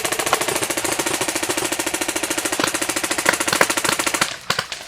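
Airsoft rifle firing one long full-auto burst: a fast, even rattle of shots that stops about four seconds in, followed by a few scattered clicks.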